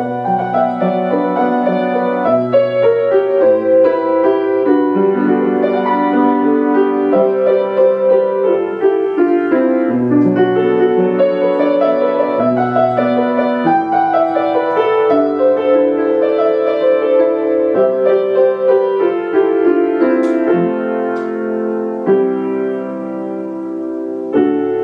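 Background music: a piano playing a melody over changing chords.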